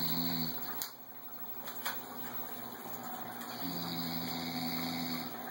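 A man snoring: one snore ends about half a second in, and the next, a steady pitched snore of about a second and a half, comes near the end. Two faint clicks fall in the pause between them.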